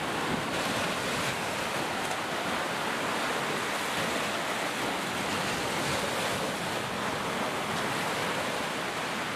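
Ocean surf: small waves breaking and washing up a beach, a steady rushing sound.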